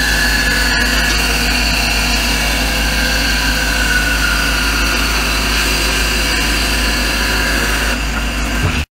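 Bandsaw running and cutting a thick wooden slab along a curved line: a steady motor hum with a high whine over it. It cuts off abruptly near the end.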